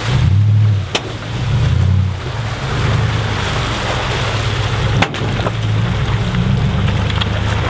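Four-wheel-drive wagon's engine crawling through a muddy rut, revving up and easing off in swells under a rushing noise, with two sharp knocks, about a second in and about five seconds in.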